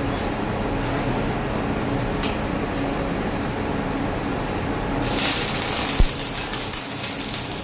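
Metalworking shop equipment: a steady machine hum, then about five seconds in a loud hiss starts, with one sharp click about a second later.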